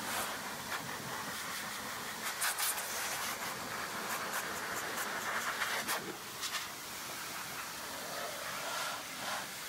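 Turbo Blaster handheld motorcycle air dryer running, a steady rushing hiss of blown air as it dries a wet motorcycle, with brief crackles now and then.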